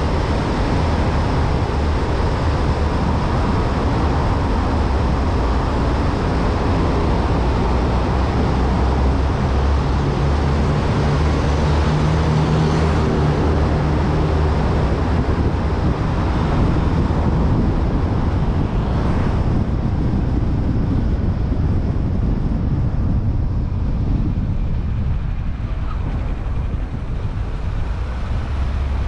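Car driving through a road tunnel: steady tyre-and-engine road noise with a strong low rumble. In the last third, as the car comes out of the tunnel, the higher hiss drops away and the sound turns duller.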